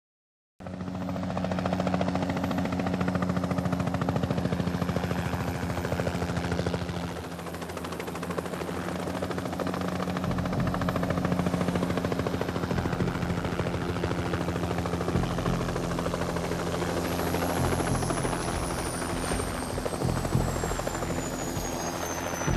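Helicopter in flight, its rotor blades chopping in a rapid, steady beat over a low engine drone. A high tone slides slowly downward over the last few seconds.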